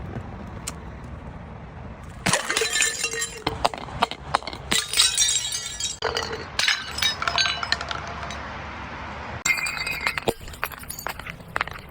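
Glass bottles breaking, with shards clinking and crunching in several dense bursts. The first burst comes about two seconds in, and another run of clinks with some ringing comes near the end.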